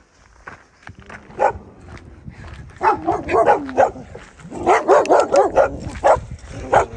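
Chained dogs barking: one bark, then quick runs of repeated barks from about three seconds in.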